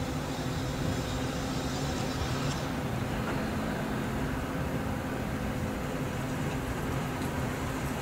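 Steady low rumble and hiss with a faint constant hum running under it, unchanging throughout.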